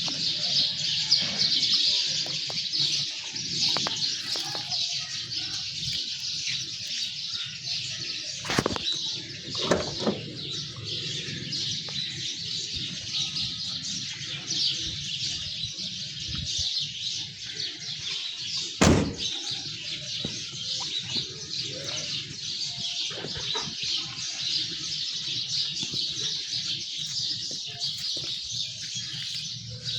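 Many birds chirping continuously in a dense, high-pitched chatter, broken by a few sharp knocks, the loudest about two-thirds of the way in.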